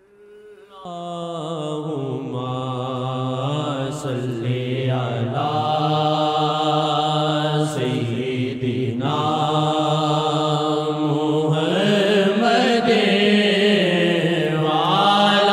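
Voice chanting an Urdu hamd (devotional praise of God) in long, drawn-out melodic lines over a steady hummed drone, rising out of silence in the first second and growing gradually louder.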